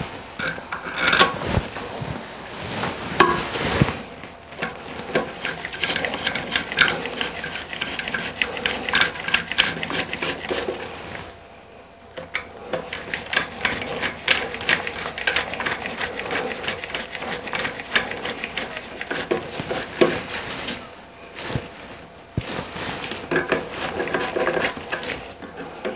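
A hand-held 11-in-1 screwdriver turns screws down through a plastic bidet-seat mounting bracket into the toilet's rubber mounting bushings, making a run of rapid, irregular clicks and scrapes. There are two short pauses, one near the middle and one about two-thirds through, as the driver is re-gripped.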